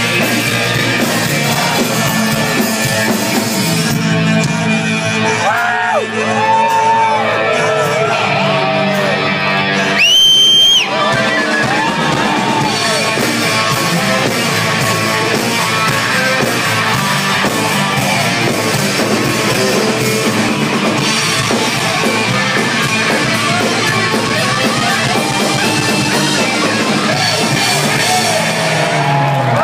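Live rock band playing, with a male singer and a crowd yelling along, heard from within the audience. A loud, shrill whistle cuts through for about a second near the middle.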